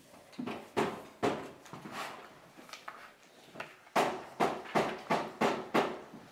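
Scissors snipping through paper: a series of short, sharp cuts, a few spaced out at first, then quicker from about four seconds in at roughly three snips a second.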